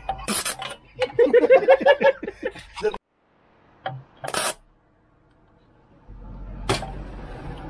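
People talking and laughing, broken by two short sharp clicks. A low steady rumble sets in near the end, with another click.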